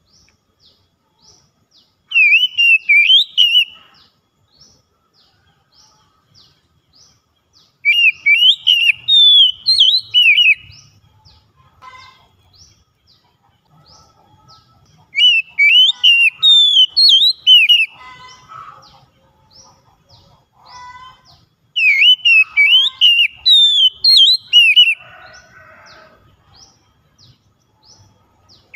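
Oriental magpie-robin song: four loud phrases of fast rising and falling whistles, each two to three seconds long, coming about every six and a half seconds. A faint, steady run of short high ticks, two to three a second, goes on behind them.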